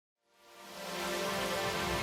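Background music fading in from silence over the first second, then a steady sustained chord over a hiss.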